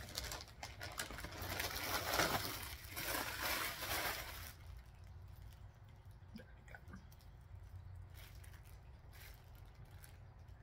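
Plastic packaging bag crinkling and rustling as a shirt is pulled out of it, loudest for the first four or five seconds, then only faint rustles and small clicks.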